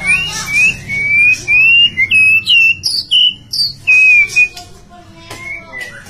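White-rumped shama, billed as a female, singing a quick string of clear whistled notes that slide up and down, a couple of notes a second. The song is loud for the first four seconds or so, then drops to softer, lower notes near the end.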